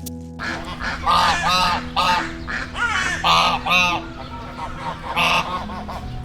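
Geese honking: a run of short, nasal calls in quick clusters, repeated throughout.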